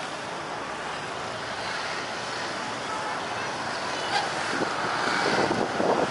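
Outdoor rushing noise, a mix of wind on the microphone and distant traffic, slowly growing louder, with faint voices of bystanders near the end.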